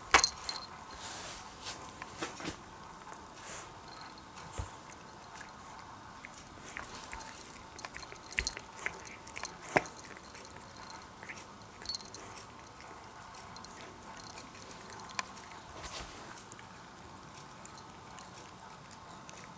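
A cat chewing and crunching a moth it has caught: scattered small sharp crunches with pauses between. The loudest crunch comes right at the start, with more near the middle.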